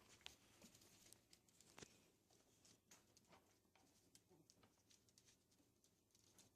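Faint, scattered light ticks and scuffles of small puppies' paws and claws moving about on a hard floor as they play.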